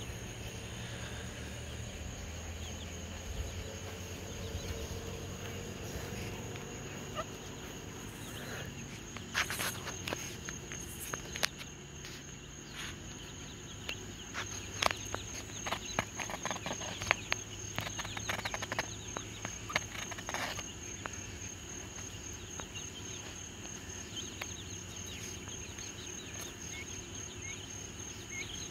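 Crickets trilling in a steady, high, even chorus, with a spell of sharp clicks and rustling through the middle and a few faint high peeps near the end.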